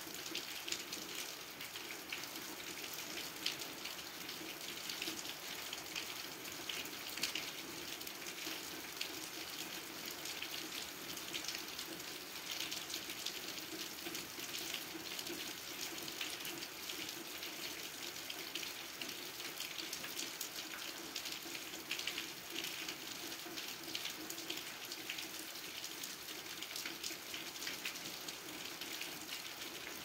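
Steady gentle rain, a dense, even patter of drops with no thunder.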